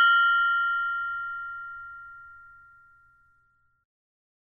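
Mindfulness meditation bell ringing on after a single strike, its clear tones dying away over about three seconds, the lowest tone fading last.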